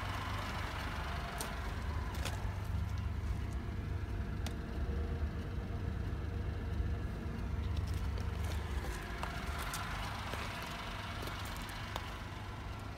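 Footsteps crunching on gravel, a scattering of short irregular crunches, over a steady low rumble.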